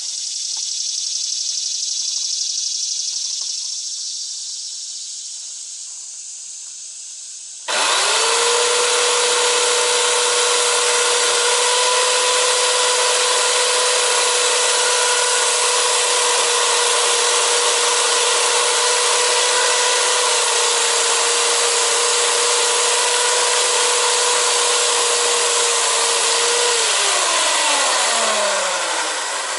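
A hiss that fades, then about eight seconds in a corded electric chainsaw starts suddenly and runs at a steady high pitch for about nineteen seconds. Near the end the trigger is released and the motor spins down, its whine falling away.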